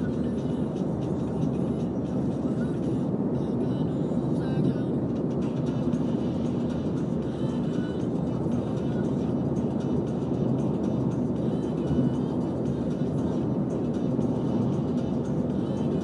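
A car under way: a steady low rumble of engine and road noise.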